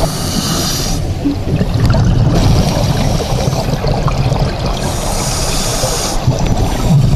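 Scuba diver breathing through a regulator underwater. Bursts of bubbly hiss lasting a second or two alternate with quieter gaps in a slow breathing cycle, over a low steady rumble.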